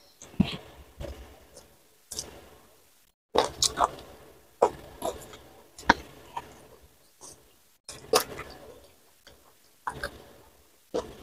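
Close-miked mukbang eating: a mouthful of rice and side dishes eaten by hand being chewed, with wet smacks and clicks in irregular clusters separated by short pauses.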